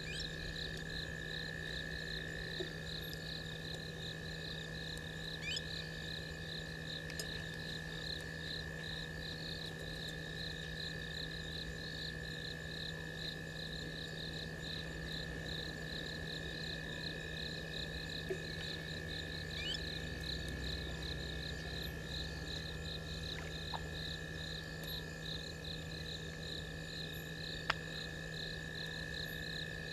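Night chorus of bushveld insects: a steady high trill with an evenly pulsing chirp above it, over a low steady hum. There is a single sharp click near the end.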